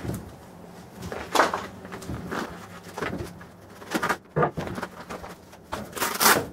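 Clear plastic packaging bag crinkling and tearing as it is ripped open and a fabric pouch is pulled out, in several separate rustling bursts.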